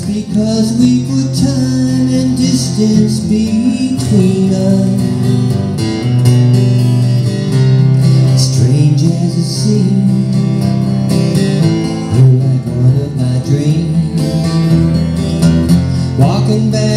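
Steel-string acoustic guitar strummed and picked in a steady instrumental passage of chords and single notes.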